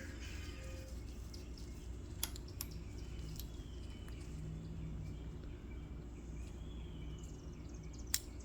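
Steady outdoor background noise with faint bird chirps and a few light clicks of small parts being handled.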